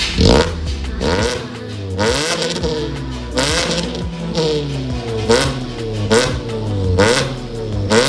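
Suzuki Ertiga engine through a full aftermarket FCK exhaust system (header to muffler), revved in quick blips about once a second, each rising and falling back.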